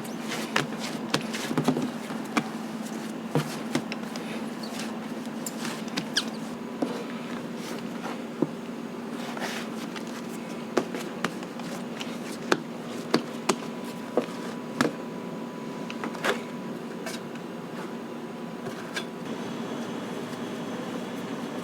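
Commercial kitchen sounds while a burger is made: a steady equipment hum, with irregular sharp clicks and taps of utensils and tools, most of them in the first three quarters.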